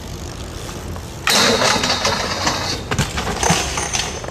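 A BMX bike grinding down a metal stair handrail, then crashing: a harsh metallic scrape with a steady high ring starts suddenly about a second in. Several knocks follow as rider and bike come down on the concrete.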